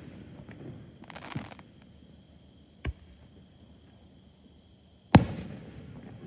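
Aerial fireworks bursting: a crackling shower about a second in, a sharp single bang near three seconds, and a loud bang a little after five seconds that dies away in a rumbling tail.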